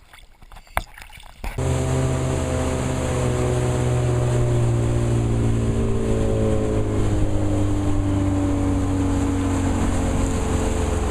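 A motorboat's engine running steadily under way, a low hum with a slowly sinking drone, over rushing wind and water noise. It comes in abruptly about a second and a half in, after a quieter start with one sharp click.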